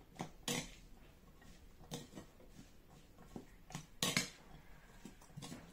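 A serving spoon stirring a wet mix of chickpeas, chopped potato, cucumber and tomato in a glass bowl. There are soft scrapes and a handful of irregular knocks against the glass, the loudest about four seconds in.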